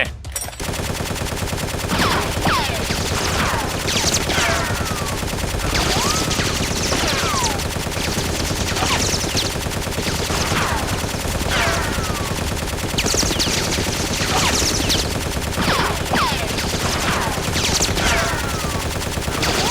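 Dense, continuous gunfire sound effects, like a machine-gun barrage, laid under a staged foam-blaster firefight. Short falling whistles cut through it about once a second.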